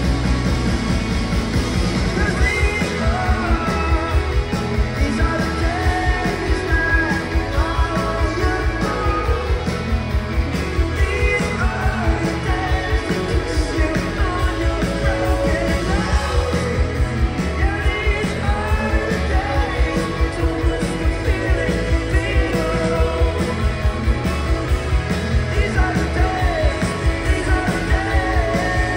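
Live rock band playing through the PA: a man singing over electric guitars and drums keeping a steady beat, heard from the audience.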